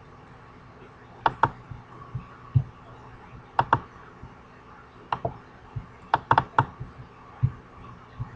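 Computer mouse clicking: sharp clicks, several in quick pairs like double-clicks, with a few softer low taps between them and a faint steady hum underneath.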